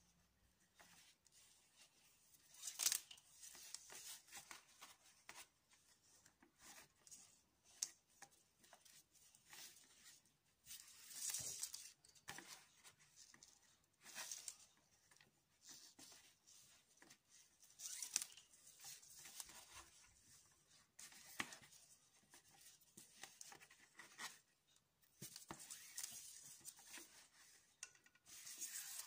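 Faint rustling and hissing of macrame cords sliding through fingers and being pulled tight as square knots are tied, in scattered short bursts.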